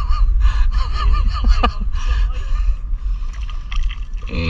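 Steady low rumble of wind buffeting the microphone, with a single sharp click about one and a half seconds in.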